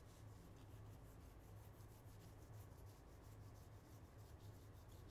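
Near silence: faint rubbing of baseball trading cards being slid through the hand one after another, over a low steady hum.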